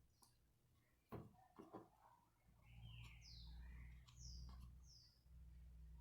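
Faint bird chirping: four or five short, falling chirps in quick succession from about midway, over a low steady hum, with a few soft clicks about a second in.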